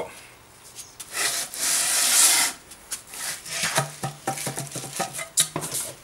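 Aluminium intake manifold flange being scrubbed across sandpaper to flatten its warped mating face: a loud continuous rasp about a second in, then shorter scrapes and a few sharp knocks as the manifold and paper shift on the concrete floor.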